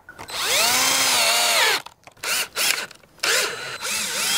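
Black+Decker 18V cordless drill driving screws into wooden posts: a long run of motor whine that rises and falls in pitch, a few short trigger bursts about two seconds in, and another run near the end.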